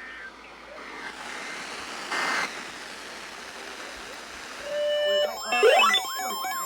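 Steady hiss, with a short louder burst about two seconds in. About five seconds in, an electronic alert tone starts: steady tones, a quick rising sweep, then a warbling siren-like pattern about three times a second, introducing the next emergency warning.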